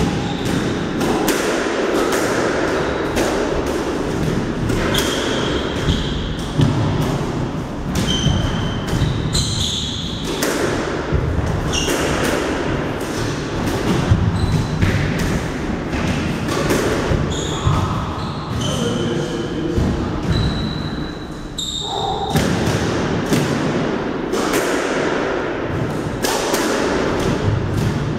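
Squash rally: a squash ball struck again and again by rackets and hitting the walls and wooden floor, sharp echoing thuds in the enclosed court, with short high squeaks scattered between the hits. Play pauses briefly about three quarters of the way through, then resumes.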